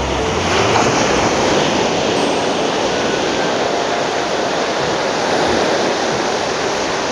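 Surf breaking and washing up a sandy beach: a steady rush of waves and foam.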